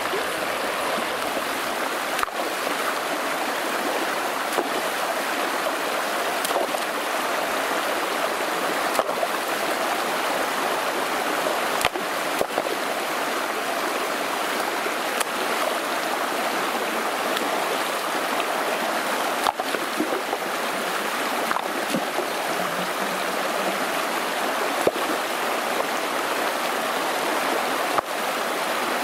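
Shallow stream rushing steadily over a low line of piled stones, with a few brief clicks now and then.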